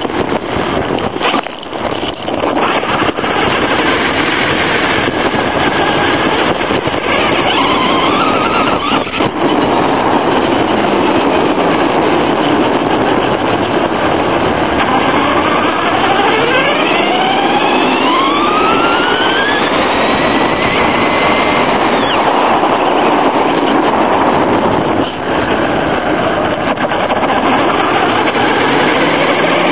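Traxxas Stampede VXL's brushless electric motor and drivetrain whining under loud road and wind noise, picked up by a camera mounted on the truck itself. The whine rises in pitch as the truck accelerates, briefly about seven seconds in and again in several sweeps from about fifteen to twenty-two seconds.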